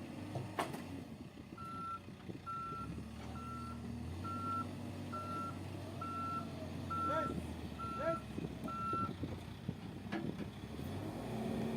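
A heavy machine's reversing alarm gives nine evenly spaced beeps, signalling that the machine is backing up, over the steady low hum of its engine running.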